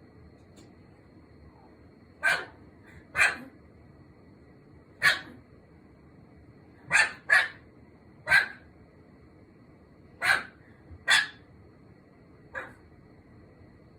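Cream Pomeranian barking: about nine short, sharp single barks, spaced a second or two apart with a quick pair now and then, the last one fainter.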